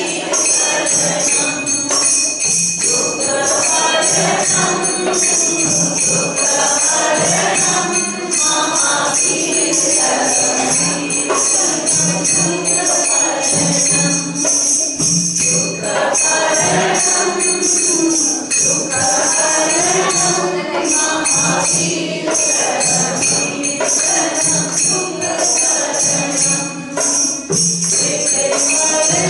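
A congregation singing a Jain devotional song together, with a dholak drum keeping a steady beat under a continuous jingle of hand percussion.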